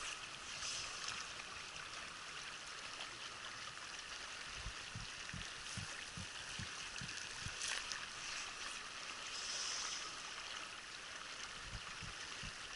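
A mountain trout river flowing steadily over rocks, with a few soft low thumps in the middle and again near the end.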